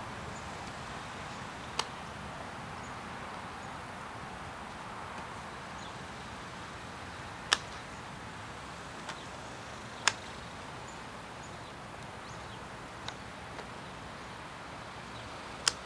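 Sharp, irregular slaps of a flying disc being caught and thrown, four loud ones and a few fainter, over a steady outdoor hiss.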